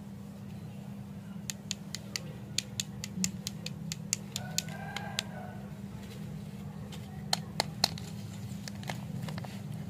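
Stick lollipops and their paper wrappers being handled and set down: a run of sharp clicks and ticks, pausing briefly in the middle and loudest near the end, over a steady low hum.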